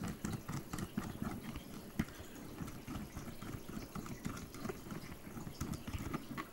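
Plastic bicycle handlebar clamp and its rubber strap being handled and pulled apart by hand: a run of irregular small clicks and knocks, with one sharper knock about two seconds in.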